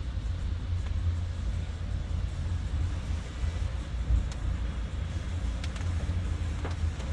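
Steady low rumble of a Toyota Prius driving on wet roads in typhoon wind and heavy rain, heard from inside the cabin, with a few faint ticks in the second half.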